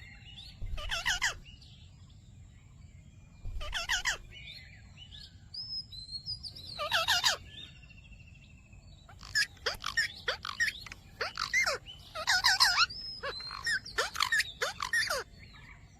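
Ringneck parrot (rose-ringed parakeet) calling in short bursts of raspy chatter. There are a few separate bursts at first, then a quick string of them from about nine seconds in.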